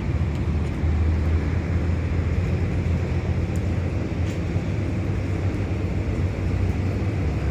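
Ship engine running, a steady low rumble.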